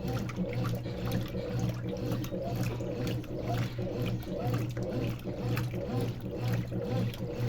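Consul Super Cargo 10 kg washing machine running with water in the tub: a steady low hum under water sloshing and trickling.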